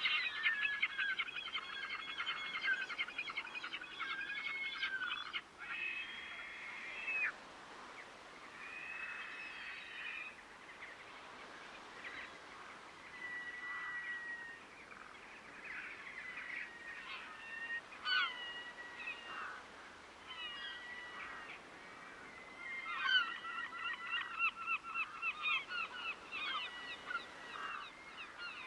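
Waterbirds calling in honking calls. A dense run of rapid calls comes at the start and another from about twenty-three seconds in, with scattered single calls between.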